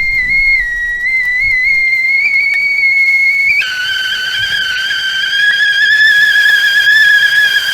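Stovetop teapot whistling at the boil: a steady, shrill, high tone that suddenly drops to a lower, fuller pitch about three and a half seconds in and holds there.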